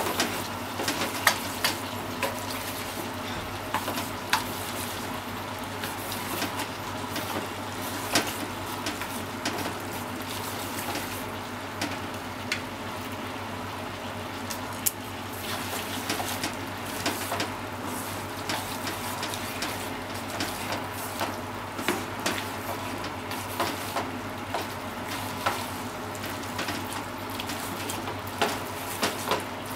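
Pork and vegetables sizzling in a frying pan as they are stir-fried, with long wooden cooking chopsticks clicking and scraping against the pan as the food is tossed, in many short irregular taps over the steady sizzle.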